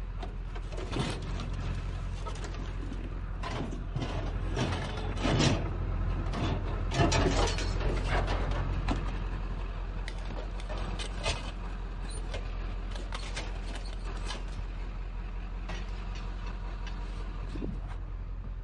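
Scrap metal being shifted and loaded by hand: irregular knocks, clanks and scraping, busiest in the first half and sparser later, over a steady low hum.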